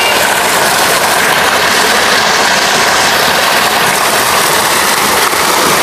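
Water from two spouts pouring into a bathing pool: a loud, steady rush and splash of falling water.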